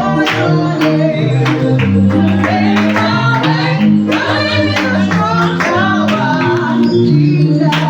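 Gospel praise-and-worship music: a praise team singing over a band, with held low chords that change every second or so and a regular beat.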